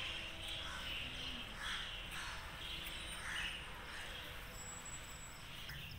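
Birds chirping and calling outdoors: short calls repeating irregularly about every half second, over a low background rumble.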